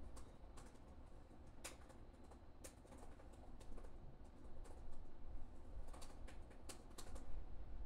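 Scattered light clicks, one or two a second at uneven spacing, over a low rumble.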